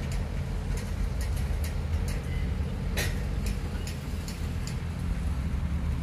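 Heavy earthmoving machinery running steadily with a low engine rumble, and scattered sharp metallic clicks and clanks over it, the loudest about three seconds in.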